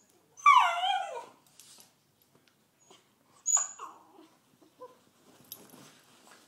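Puppy whining: a loud whine that falls in pitch and lasts nearly a second, then a shorter falling one about three seconds later.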